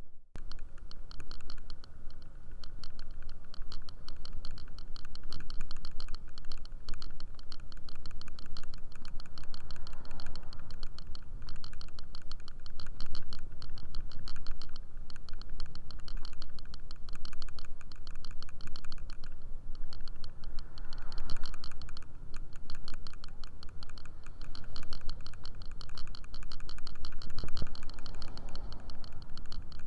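Wind rumble on a handlebar-mounted camera on a moving scooter, with a rapid, steady ticking rattle over it.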